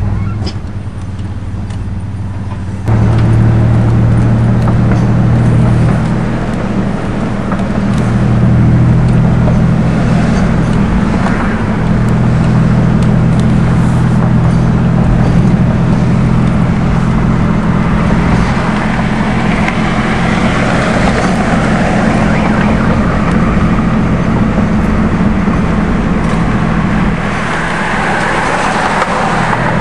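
Car engine and road noise heard inside a moving car: a steady low drone that gets suddenly louder about three seconds in.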